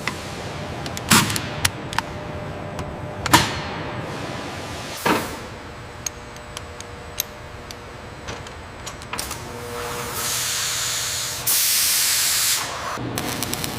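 A few sharp knocks in the first five seconds, then a loud hiss lasting about three seconds that steps up louder partway through before cutting off.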